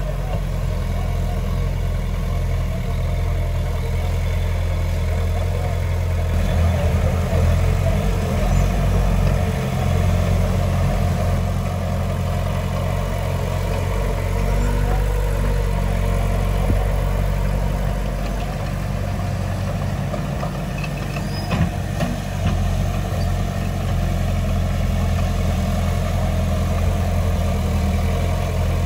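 Heavy diesel earthmoving machine running with a steady low drone that swells a little a few seconds in, with a few short knocks about three quarters of the way through.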